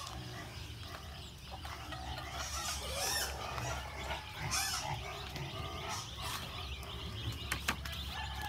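Backyard chickens and pigs calling: a few short cries and squeals that bend up and down in pitch, with a couple of sharp knocks near the end.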